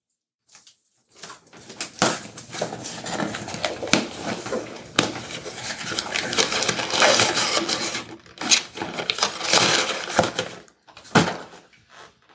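Hands rummaging through fly-tying materials and tools at a bench: a dense run of rustling, clicking and clattering with several sharp knocks. It starts about a second in and stops with a last knock near the end.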